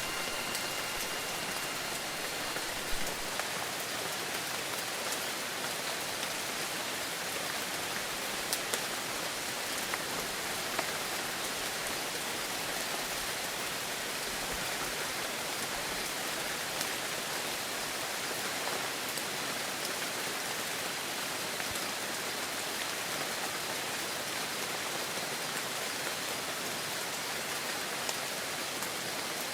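Steady heavy rain falling, a dense even hiss with scattered louder drop ticks. A wind chime's ringing tones die away in the first few seconds.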